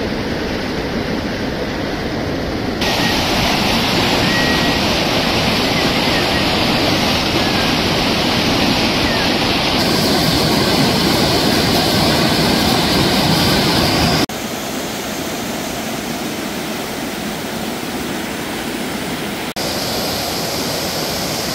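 Rushing water of a rocky mountain river's rapids, a loud steady noise that changes abruptly in level and tone several times.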